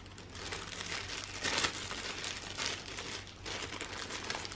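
Plastic packaging crinkling and rustling in short bursts as vacuum parts are unwrapped.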